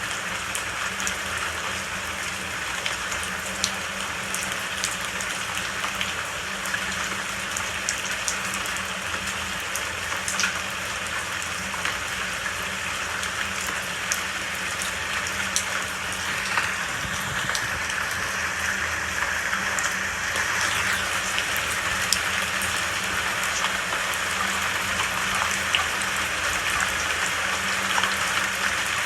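Steady rain falling, a continuous hiss with scattered sharp drops pattering close by.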